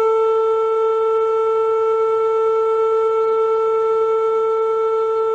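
Air-raid siren sounding one loud, steady tone.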